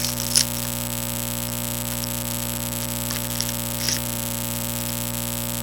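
Steady electrical mains hum and hiss from the recording, with a few faint, brief scratchy sounds over it.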